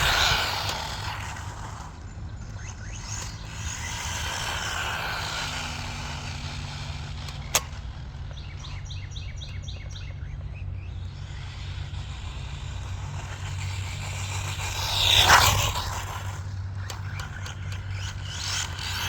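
Whine of a 1/16-scale RC short course truck's 2430 3800kv brushless motor run flat out on a 3S LiPo, swelling as the truck passes and with one loud close pass that rises and falls sharply about fifteen seconds in.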